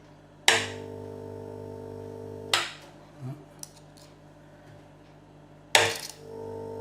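Transformer buzzing under load as power is connected by hand to a Renault electric parking brake motor. A sharp snap as the wires make contact about half a second in, then a steady buzz for two seconds, and another snap as contact breaks. A third snap comes near the end and the buzz returns. The motor only strains and tries to move, which the owner takes for a shot motor.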